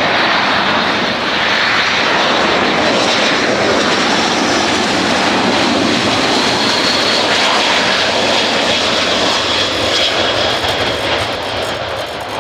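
Boeing C-17 Globemaster III's four Pratt & Whitney F117 turbofans at approach power as the transport comes in to land: a loud, steady jet roar with a faint high whine through the middle, easing slightly near the end.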